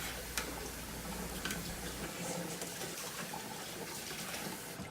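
Kitchen tap running into the sink, an even hiss of water with a few faint clicks.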